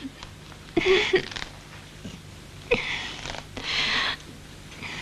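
A woman breathing hard in strained, breathy gasps, with a short whimper about a second in.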